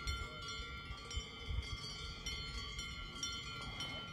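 Metallic chimes or bells ringing, several tones sounding at once and struck again now and then, over a few low rumbles.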